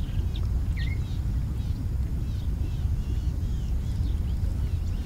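Outdoor ambience of small birds chirping and calling in short arched notes over a steady low rumble.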